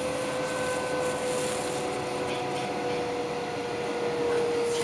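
Tram running along its track, heard from inside: a steady rolling noise of wheels on rails with a steady electric motor whine that sinks slightly in pitch.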